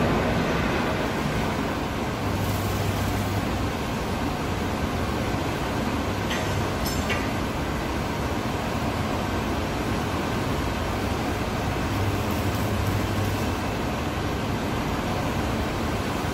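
Electric arc welding on a steel tank-lid frame: a steady, unbroken hiss-like noise, with a low hum coming in briefly twice and two short clicks near the middle.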